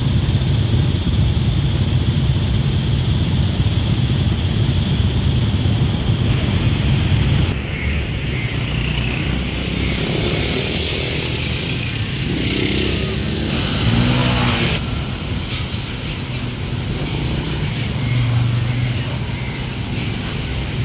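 Urban road traffic: car and motorcycle engines running as vehicles pass, with a steady low rumble. One vehicle passes louder about two-thirds of the way through.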